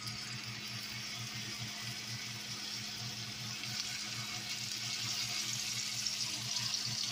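Deer burger patties sizzling in hot butter in a skillet: a steady frying hiss that grows a little louder in the second half as another patty is laid in.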